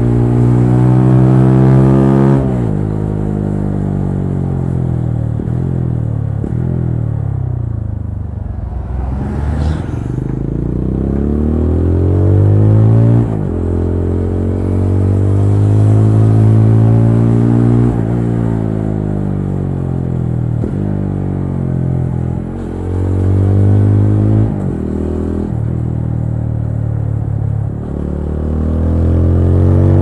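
TVS Apache RTR 200 4V's single-cylinder engine under way, its revs climbing and falling with many gear changes. A few seconds in the revs drop and wind down slowly as the bike slows, then pick up again and pull through the gears with several quick shifts in the second half.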